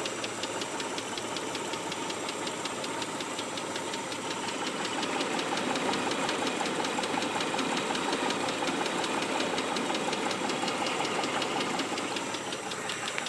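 Mitsubishi 3000GT's 3.0-litre V6 running with a fast, even ticking knock, which the owner fears is rod knock and hopes is lifter tick.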